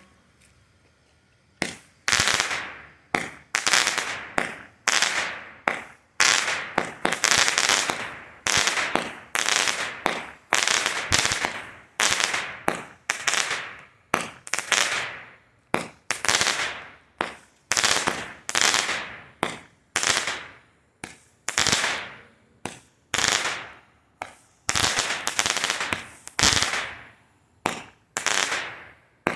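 A 25-shot consumer fireworks cake (Boomer Fireworks 'Tequila Party') firing shot after shot, starting about two seconds in: a steady run of sharp reports, roughly one to two a second, each trailing off briefly.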